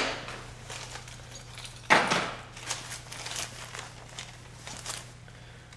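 Light handling clatter as the multimeter test leads are taken off the car battery: a sharp clack about two seconds in, then a few faint knocks, over a steady low hum.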